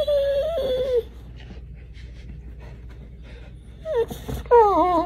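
A dog making wavering, whining moans: one lasting about a second at the start, and a longer one beginning near the end.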